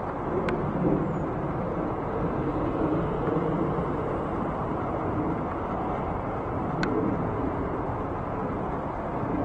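Steady low rumble of a twin-engine narrow-body jet airliner climbing out overhead after takeoff, its turbofan engines heard from the ground. Two faint sharp ticks cut through, about half a second in and near seven seconds.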